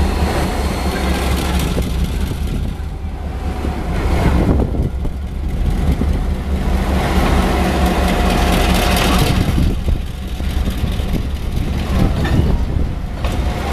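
Taiwan Railway R52 diesel-electric locomotive's engine running with a steady low hum as the locomotive rolls slowly past.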